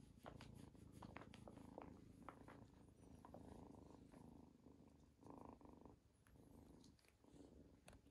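Kitten purring faintly while being stroked, a low pulsing rumble, with a few soft clicks in the first couple of seconds.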